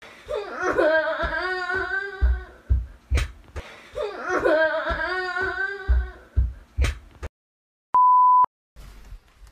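A short meme music clip, a wavering voice-like melody over bass hits, played twice in a row. A steady half-second beep follows about eight seconds in.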